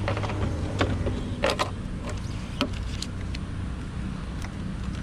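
Fuel nozzle being hung back on a petrol dispenser, with several sharp clicks and knocks over a steady low mechanical hum.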